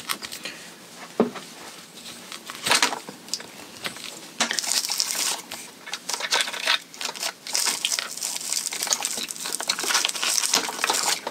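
Hands handling and pushing thick power wires into place on an RC car's plastic chassis: crinkling and rustling, with a couple of sharp clicks in the first few seconds and steadier rustling from about halfway in.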